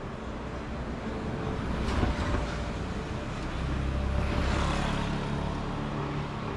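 Street traffic with a motor vehicle passing close by: its engine rumble swells from about halfway through and eases off near the end. There is a brief louder noise about two seconds in.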